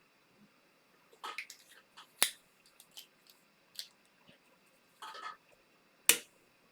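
Tools being handled at an electronics repair bench: a few sharp metallic clicks and taps, the loudest about two seconds in and near the end, with short scraping rustles between them.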